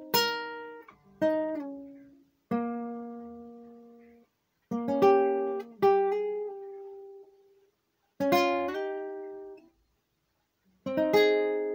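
Acoustic guitar played slowly by fingerpicking: about seven plucked chords and short arpeggios, each left to ring and die away. There are gaps of silence of up to a second between phrases, as in a piece still being worked out.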